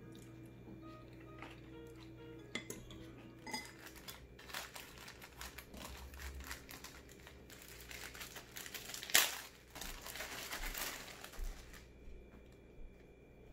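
Soft background music with a few light clinks of cutlery on dishes, then the crinkling and rustling of a plastic mailer bag being cut open with scissors and its contents pulled out, with one sharp, loud crackle near the middle.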